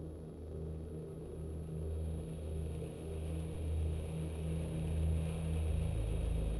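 Low, pulsing rumble drone that slowly grows louder, with a deeper rumble coming in near the end.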